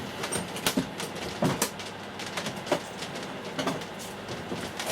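Handling noises at a workbench: scattered, irregular clicks and light knocks as small objects are picked up and moved, likely while a roll of Kapton tape is fetched.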